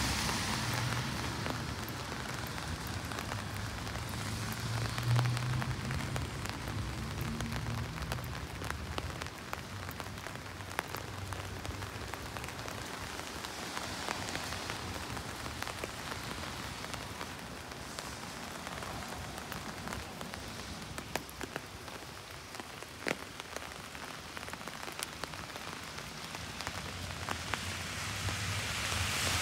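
Steady rain falling on city surfaces, a dense patter of individual drops ticking over a hiss. A low traffic rumble sits under it for the first several seconds and returns near the end.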